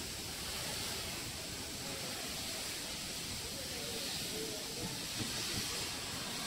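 Steady high-pitched hiss that swells and fades a little.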